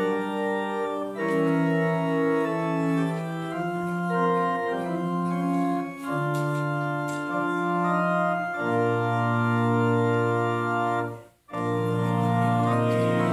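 Organ playing slow, sustained chords over a moving bass line, hymn-like. The sound cuts out for a split second about eleven seconds in, then the chords resume.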